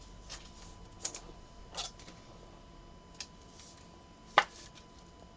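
Trading cards being handled and set down on a table: a handful of light, scattered clicks and taps, the sharpest about four and a half seconds in.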